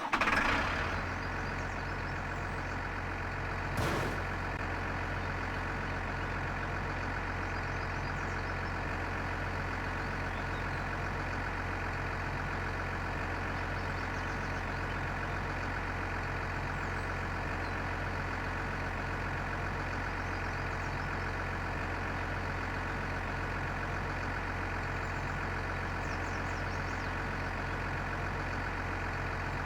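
A machine running steadily: an even, unchanging engine-like hum, with one short knock about four seconds in.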